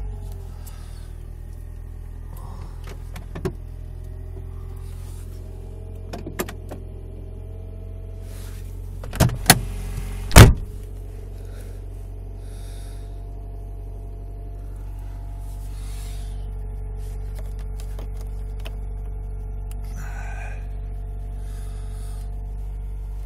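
Mercedes-Benz 190 engine idling steadily, heard from inside the cabin. A few sharp clunks break in: small ones about three and six seconds in, and the loudest pair about nine and ten seconds in.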